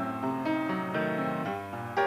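Background piano music: a slow run of notes over held chords, changing about every half second.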